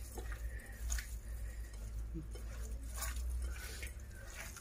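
Hands squeezing and kneading a wet minced-meat stuffing with rice, egg, parsley and oil in a bowl: soft, irregular squelching over a low steady hum.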